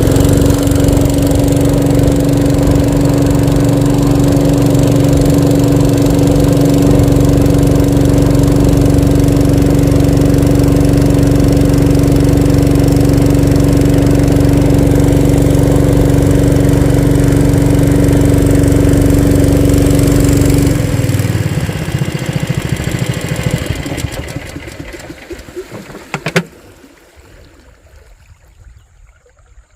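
A small engine running steadily at a constant speed, then cutting out about two-thirds of the way through. The remaining noise dies away over a few seconds, with one sharp click near the end.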